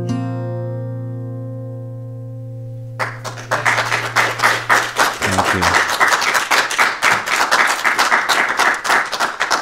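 Acoustic guitar's final chord ringing out and slowly fading, then applause starting about three seconds in and stopping just before the end.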